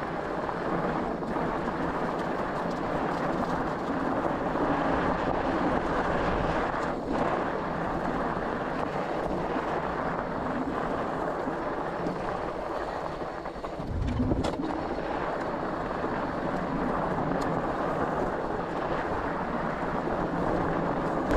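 Hovsco HovAlpha 26 fat-tire e-bike riding along a dirt trail: a steady rolling rumble of the tyres with wind on the microphone and a faint steady hum. A low thump about two-thirds through, with a few light clicks.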